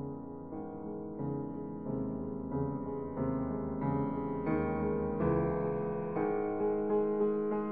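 Slow background piano music, a new note or chord about every half second to second, gradually growing louder.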